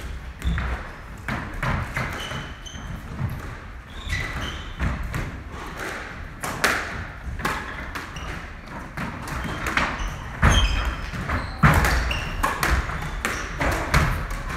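Squash rally: the ball is struck by racquets and thuds off the court walls again and again, with court shoes squeaking on the wooden floor between shots.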